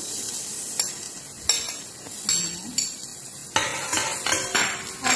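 Chopped garlic sizzling in hot oil in a stainless steel pot, with a steady hiss. A spoon clicks and scrapes against the pot as it stirs, a few times early and then in quicker succession near the end.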